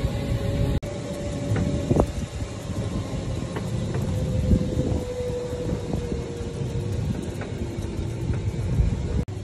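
Open-sided resort shuttle cart riding along a paved path: a steady low rumble of tyres and wind, with a motor whine that sinks slightly in pitch. The sound drops out for an instant about a second in and again near the end.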